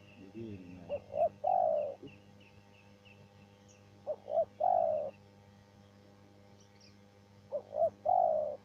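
Spotted dove cooing its song three times, evenly spaced: each phrase two short notes followed by a longer, falling 'kurr'.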